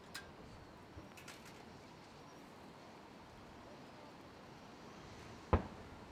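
Aerial firework shell going off: one sharp boom about five and a half seconds in. Before it, a few faint clicks over a low steady hiss.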